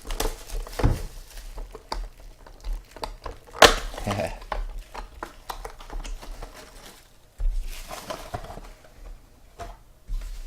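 A sealed box of football trading cards being opened and handled by hand: irregular rustling of wrapping and cardboard with small clicks, and one sharper knock about three and a half seconds in.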